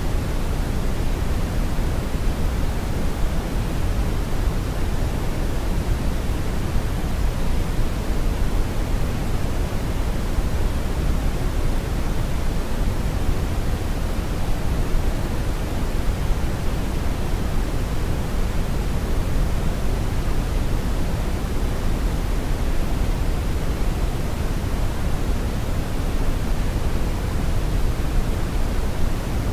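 Synthetic brown noise: a steady, even rumbling hiss, heaviest in the lows and thinning toward the highs, with no change or events.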